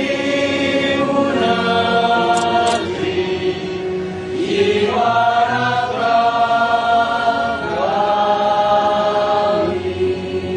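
Choir singing a slow melody in long held notes, one note after another with short slides between them.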